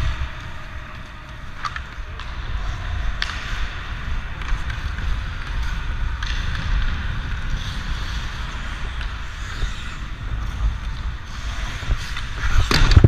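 Hockey skates scraping and gliding on rink ice, with wind rumbling on the microphone, a few light clicks, and one loud sharp knock near the end.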